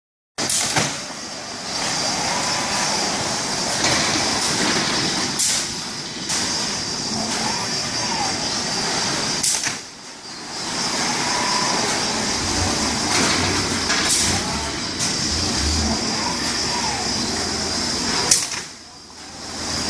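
Fanuc 420iF palletizing robot working through its stacking cycle: a steady hiss of machinery with servo whines that rise and fall as the arm swings, and a sharp click about every four to five seconds as the end-of-arm tool picks or releases a bag.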